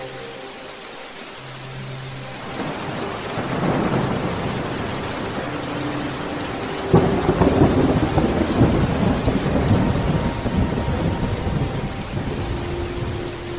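Steady rain with thunder. A rumble builds about three seconds in, then a sharp crack comes near the middle and is followed by a long low rumble that slowly dies away.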